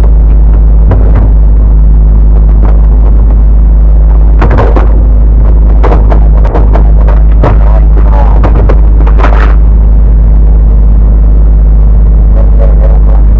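Storm wind of about 40 knots blasting across the microphone on a sailboat's deck: a loud, overloaded rumble, broken by frequent sharp knocks and slaps.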